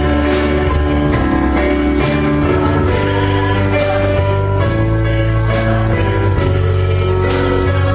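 Contemporary Christian worship song: singing voices over a band, with sustained bass notes and a steady drum beat.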